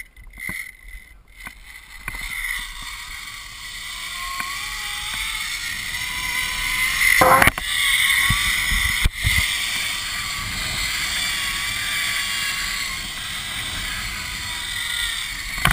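Zipline trolley's pulleys running along the steel cable: a steady whirring rush mixed with wind on the microphone. It builds from about two seconds in and then holds, with a sharp knock about seven seconds in.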